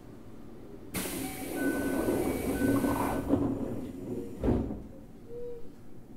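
Train doors closing on a Toei 5300 series EMU: a sudden hiss of compressed air for about two seconds, then the doors thud shut.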